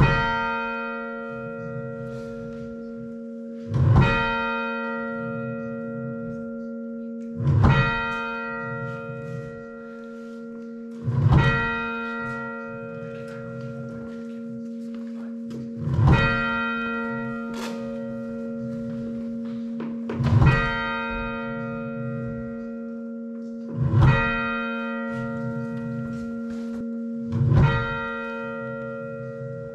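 Church bells rung fully muffled, with the tenor left open at backstroke: a loud, clear bell stroke about every four seconds, its hum ringing on and fading between strokes, over the dull muffled strokes of the other bells.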